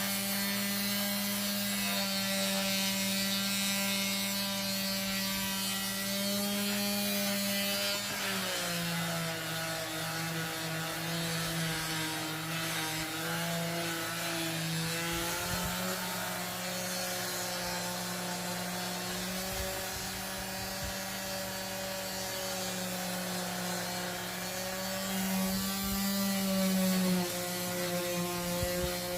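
Electric sander running against wood: a steady motor hum under the hiss of sandpaper on the wood. The hum dips in pitch about eight seconds in and rises again about halfway through.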